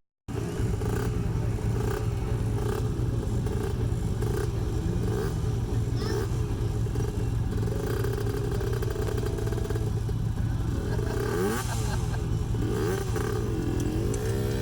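Off-road vehicle engine running under load, its pitch rising and falling as the throttle is worked, with some rattling.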